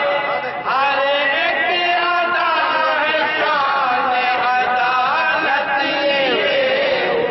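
A group of men singing a naat together into a stage microphone, voices in unison with long, held, gliding melodic lines.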